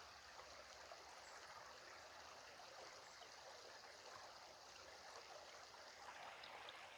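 Faint, steady rush of a small, shallow stream trickling gently over its bed.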